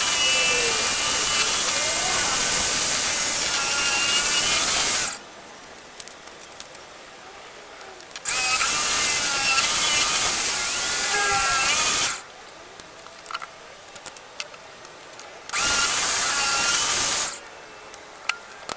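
A power tool running in three bursts of several seconds each, starting and stopping abruptly, with small clicks and knocks in the quieter gaps between.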